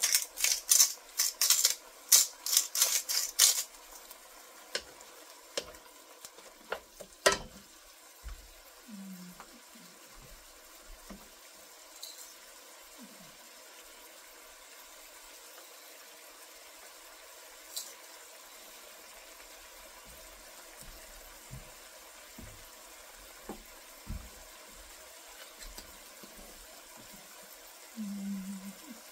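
Tomatoes and onions frying in a nonstick wok, stirred with a wooden spatula: a quick run of scraping strokes in the first few seconds, then a faint steady sizzle with occasional light taps.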